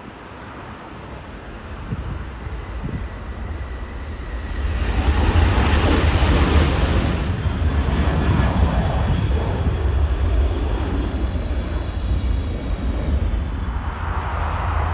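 Jet aircraft engines passing close by: the noise swells over the first five seconds into a loud, steady rumble with a faint high whine over it.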